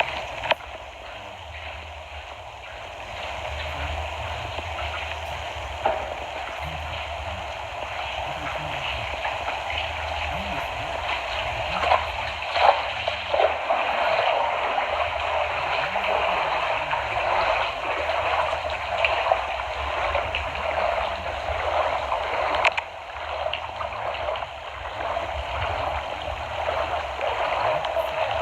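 Floodwater rushing and gurgling steadily, with a low rumble beneath.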